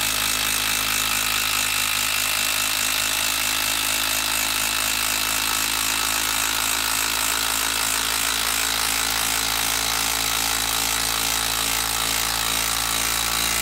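Makita 12-volt brushed impact driver hammering steadily and without pause while it drives a long TimberLok structural screw into a wooden log. It cuts off at the very end as the screw is driven home.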